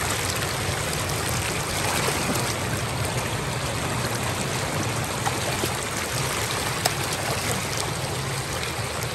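Steady rush of floodwater flowing over a road, with a brief faint click about two-thirds of the way through.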